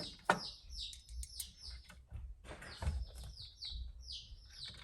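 A small bird chirping: quick runs of short, high, falling chirps, with a single sharp click about a third of a second in.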